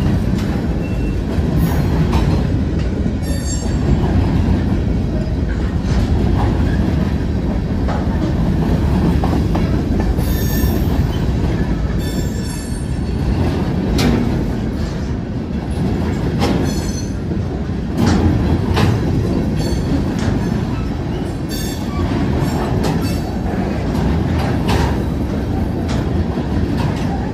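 Freight train cars rolling past close by: a steady low rumble of steel wheels on rail, with clicks from the wheels and a few brief high-pitched wheel squeals.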